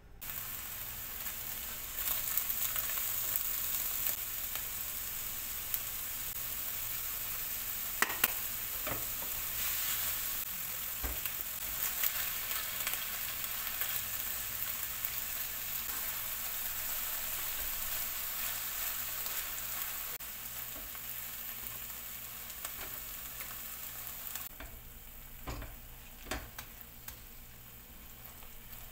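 Fresh spinach and cream cheese sizzling in a frying pan while being stirred with a silicone spatula: a steady frying hiss with a few sharp clicks and knocks. The sizzle thins out a few seconds before the end.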